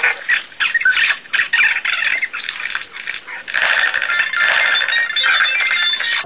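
Soundtrack sound effects of a student-made animated short about a frightened horse: an irregular run of sharp rattling clatters, thin and without bass, with a few brief high tones in the second half.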